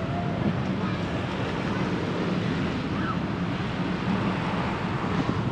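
Steady rush of wind on the microphone over the hum of road traffic, heard from a moving bicycle on a city street.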